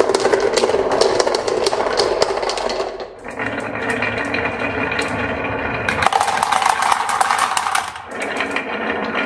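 Marbles rolling and clattering along a toy marble run, a steady rattle full of quick clicks that changes sound abruptly about three, six and eight seconds in as they move onto different sections of track.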